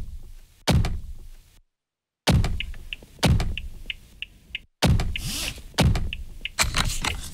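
Heavy thunks of a Toyota HiAce's door used as drum hits, about one a second, with short high ticks between some of them and abrupt cuts to dead silence.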